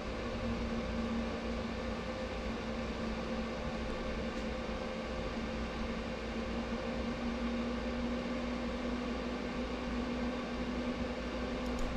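Steady background hum and hiss of room noise, with a constant pitched hum over a low rumble and a faint click about four seconds in.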